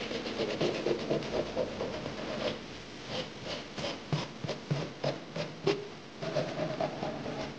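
Hand sanding of a fluted beech Festool Domino rod peg: a sanding block with sandpaper is rubbed over the peg's end in short back-and-forth strokes, about three a second through the middle.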